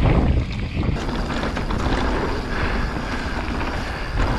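Enduro mountain bike descending a dirt forest trail: knobby tyres rolling over the ground and wind rushing over the microphone make a steady rumbling hiss, with light clicks and rattles from the bike.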